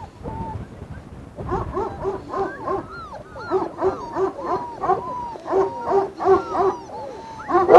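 Young puppies whimpering and whining in many short cries that rise and fall, coming thick and fast from about a second and a half in and louder near the end.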